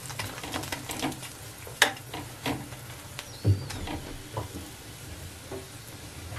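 A ghee-coated paratha frying on a tawa with a low sizzle, while a metal spatula presses and scrapes it, giving scattered clicks and taps. There is a sharper knock about two seconds in and another about three and a half seconds in.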